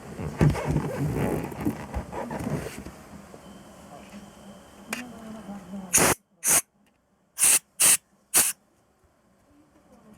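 A few seconds of irregular handling clatter, then from about six seconds in five short, sharp hissing spray blasts, as in blowing out carburettor passages during cleaning.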